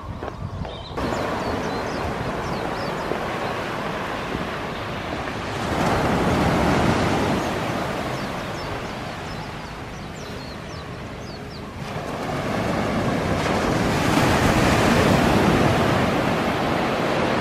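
Surf on a sandy beach: small ocean waves breaking and washing up the sand as a steady rush. It swells louder about six seconds in and again from about twelve seconds in.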